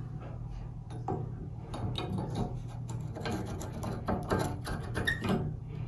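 Chrome bonnet nut of an old Delta shower valve being handled and fitted onto the valve body by hand: a run of small irregular metal clicks and scrapes, over a low steady hum.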